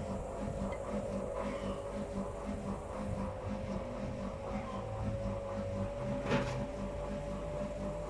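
Whirlpool FL 5065 front-loading washing machine running with a hat in its drum during a spin cycle set to 600 rpm. A steady motor whine runs over an even pulsing rhythm, and there is a single sharp click a little over six seconds in.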